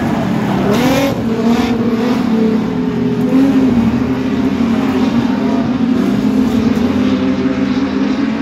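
Production sedan race car engine running hard at racing speed, its note holding fairly steady with small rises and dips in pitch, and a brief rising sweep about a second in.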